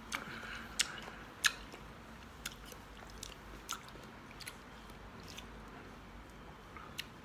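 A small child chewing a mouthful of soft fruit, with a few sharp, irregular wet mouth clicks.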